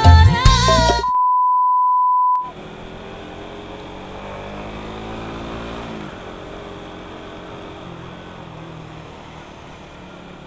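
A woman singing over band music breaks off about a second in, replaced by a loud steady one-pitch beep lasting about a second. Then a Suzuki Satria FU motorcycle engine runs with road and traffic noise, its pitch dropping around the middle as the bike slows, then running on evenly.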